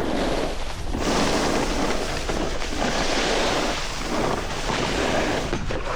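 Snowboard sliding and scraping over hard, icy snow: a rushing hiss that swells and fades as the rider turns, with wind on the microphone.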